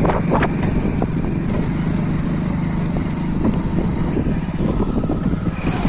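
Motor vehicle engine running steadily while moving along a rough dirt track, with a few brief knocks near the start.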